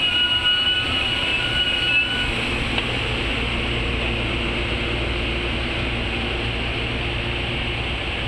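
Amtrak Superliner bilevel passenger cars rolling slowly past as the train brakes into the station: a high metallic wheel-and-brake squeal for the first two seconds, then a steady rumble of steel wheels on the rails.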